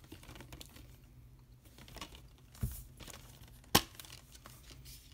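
Clear plastic shrink wrap crinkling as it is handled and pulled off a Blu-ray steelbook case, with a dull knock about two and a half seconds in. A single sharp metallic click a little under four seconds in as the steel case is opened.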